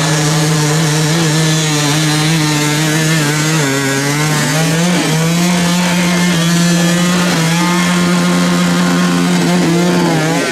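Dirt bike engine held at high revs, one steady high-pitched note, with the bike stuck on a steep climb of loose rock. The revs dip and waver briefly about four seconds in, then climb back and hold.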